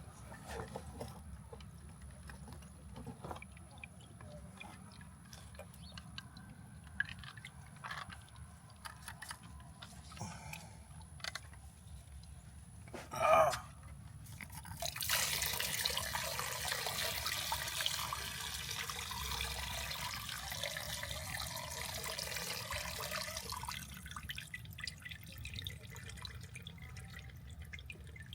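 Gasoline dripping and trickling while a car's fuel pump assembly is worked out of the fuel tank, with light clicks and knocks of plastic parts. About halfway through there is a brief loud sound, then several seconds of steady splashing and pouring that fades.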